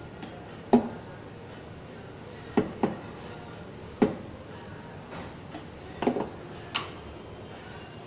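A few short, sharp knocks and clinks of a steel milk pitcher and a ceramic cup being handled and set down while latte art is poured, over steady background noise.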